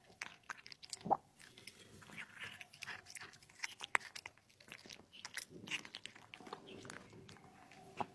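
A cat eating close to the microphone: quick, irregular chewing and biting clicks, with a sharper bite about a second in and another about four seconds in.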